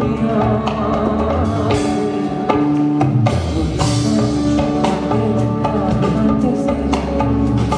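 Live band music: a drum kit keeping a steady beat over sustained keyboard chords.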